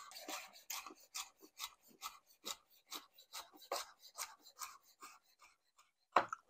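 Kitchen knife cutting firm vegetables on a cutting board: a steady run of short rasping slices, about two or three a second, that thins out near the end and closes with one sharper knock of the blade.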